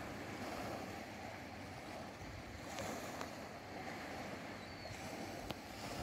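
Small sea waves washing onto a sandy beach, a steady wash of surf with low wind rumble on the microphone. A few faint clicks sound around the middle and near the end.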